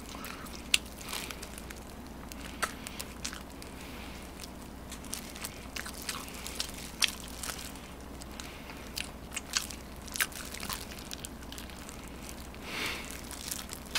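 A person biting and chewing fried chicken, with irregular sharp crunches and mouth clicks.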